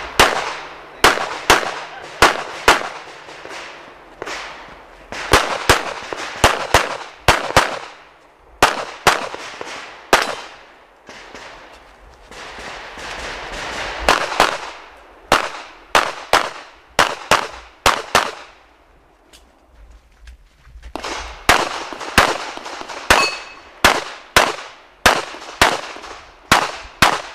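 Rapid 9 mm pistol fire from an S&W M&P9 Pro during a timed practical-shooting stage: shots come mostly in quick pairs and short strings, with a short echo trailing each one, broken by a few brief pauses of a second or two.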